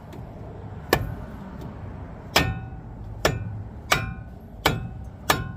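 Six hammer blows on metal, each with a short ring, at an uneven pace of roughly one a second: a stuck truck wheel being knocked loose from its hub.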